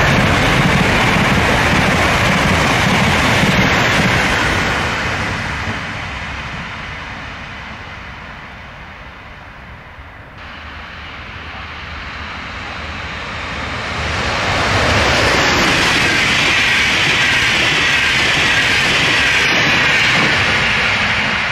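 Italo ETR675 EVO high-speed electric train passing close at speed, a loud rush of wheels on rail and air that fades as it goes. Then a Trenord double-deck regional electric train approaches, its rail noise swelling from faint to loud as it passes by.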